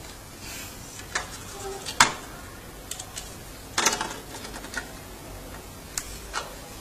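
Blocks of a Tetris stackable LED lamp clicking and knocking together and on the desk as they are fitted into place: scattered sharp clicks, the loudest about two seconds in and a quick cluster near four seconds.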